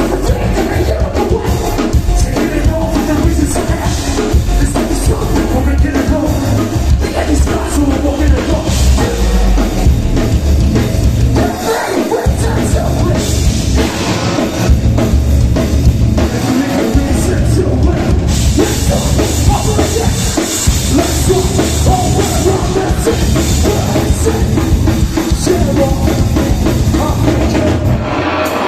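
Heavy metal band playing live: loud drum kit and heavy bass under dense distorted sound, with a couple of brief breaks in the low end partway through.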